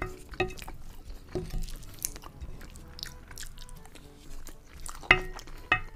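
Close-miked eating: chewing and mouth sounds, with a wooden spoon scraping and clicking on a plate. Two sharper clicks come a little after five seconds in.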